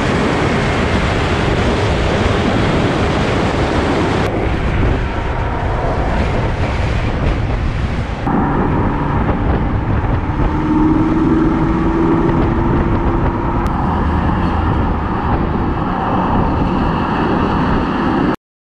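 Car driving on a road: steady road and wind noise that changes abruptly about four and eight seconds in, with a steady engine tone rising slightly in the middle. It cuts off suddenly near the end.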